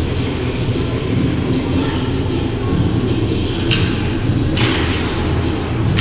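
Steady low rumble of ice-rink ambience during a hockey game, with two sharp clacks about three and a half and four and a half seconds in.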